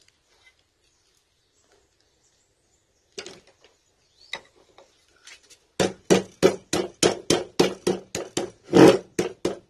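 Rapid hammer blows on metal, about four a second, starting some six seconds in after a few faint clicks, each blow ringing briefly. The hammer is working on the steel stator of a 3 hp swimming-pool pump motor whose old copper winding is being stripped for a rewind.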